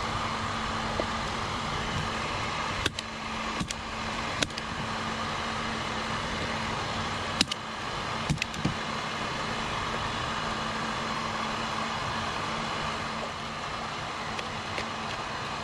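Steady blowing whir of an electric heat gun, with a faint hum under it. Six sharp clicks are scattered through it: three a few seconds in and three more around eight seconds.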